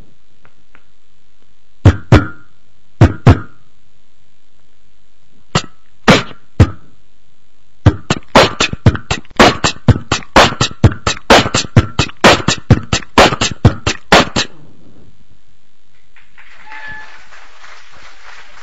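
Beatboxing: a few sharp vocal drum hits in pairs and singles, then a fast, steady run of kick-and-snare hits lasting about six seconds. About a second and a half after it stops, an even spread of noise like audience applause comes in.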